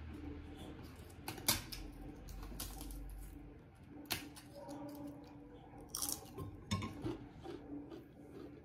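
Close-up eating sounds: chewing, with a few sharp crackles and clicks as a crisp papad is crunched and crumbled into rice by hand.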